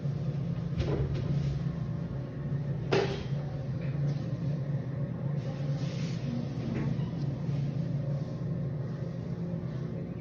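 A steady low hum, with one sharp knock about three seconds in and a couple of fainter clicks.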